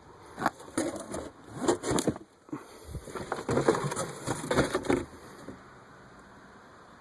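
Hands handling hard plastic dashboard parts: a run of clicks, knocks and rustling that stops about five seconds in.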